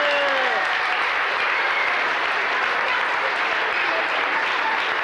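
Audience applauding steadily. A held electronic keyboard note, the end of the piece, slides down and stops about half a second in.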